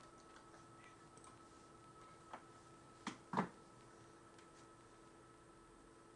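A few light knocks on a wooden floor over a faint steady hum, the loudest a double knock with a soft thud about three seconds in, from a toddler moving a shoe and her bare feet about on the boards.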